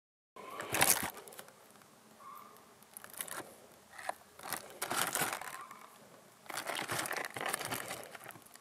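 Shrink-wrapped cardboard box being handled and turned over in the hands, its plastic wrap crinkling. The crinkling comes in several short bursts, the loudest about a second in.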